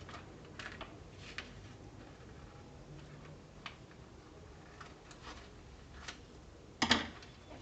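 Scissors snipping through folded paper along a line: scattered sharp clicks about a second apart, with a louder, longer crunch of paper near the end.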